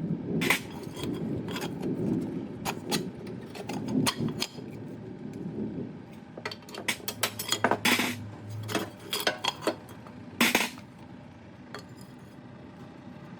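Metal tools and parts clinking and knocking against each other as they are handled, with a few louder strikes (one about half a second in, another around eight seconds and one at about ten and a half seconds), over a rough rubbing noise in the first half.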